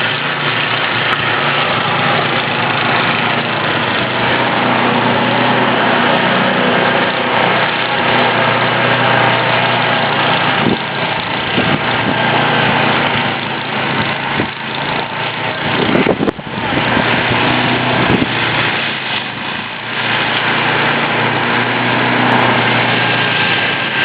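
Small gasoline snowblower engines running steadily, the sound dipping and swelling a few times in the second half, with a couple of short knocks.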